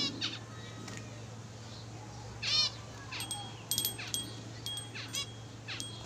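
Caged zebra finches calling: a series of short separate calls, the loudest about two and a half seconds in, then a quick run of sharp high notes from about three seconds in.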